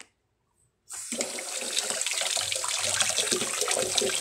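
Water gushing from a kitchen tap over a hand and splashing into a stainless steel basin in the sink, turned on about a second in and running steadily.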